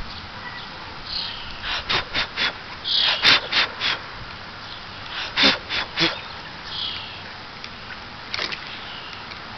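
Savannah cat sniffing with its nose down near the water, in quick runs of three or four short sniffs, about four a second.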